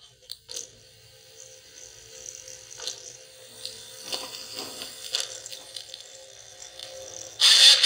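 Small loudspeaker driven by a homemade single-MOSFET amplifier from a phone's audio output. The playback cuts out at the start, leaving a faint hiss and a steady hum with a few soft sounds, then loud audio comes back through the speaker near the end.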